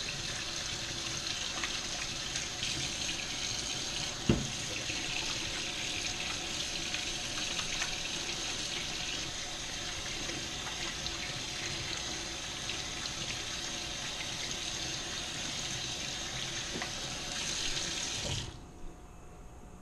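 Kitchen faucet running into a stainless-steel sink while hands are rinsed under the stream, a steady rush of water. A single sharp knock sounds about four seconds in, and the water is shut off abruptly near the end.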